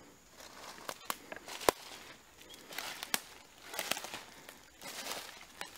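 Footsteps crunching through dry leaf litter on a forest floor, mixed with a person's heavy breathing, in uneven swells about once a second. A sharp click about a second and a half in is the loudest sound.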